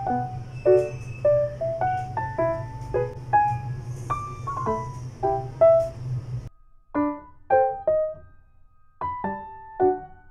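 Background music of soft piano or electric piano notes in a slow melody. A steady low hum sits underneath it and stops abruptly about six and a half seconds in.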